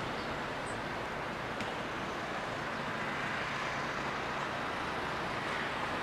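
Steady hiss of distant road traffic, unchanging throughout.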